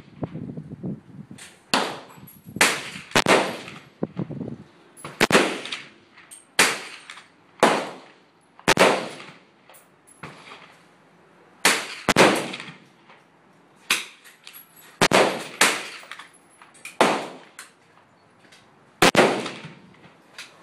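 Rifle shots fired at an uneven pace, about sixteen sharp cracks, each with a short echoing tail, some in quick pairs about a third of a second apart.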